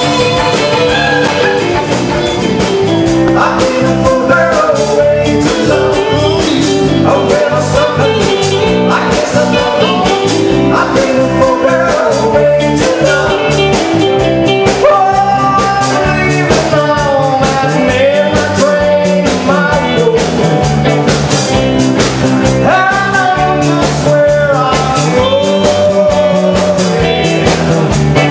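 Live band music: a man singing lead over electric guitar, with a steady drum beat throughout.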